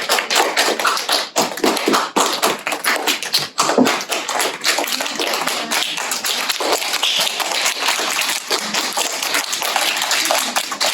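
Audience clapping: many quick, irregular hand claps.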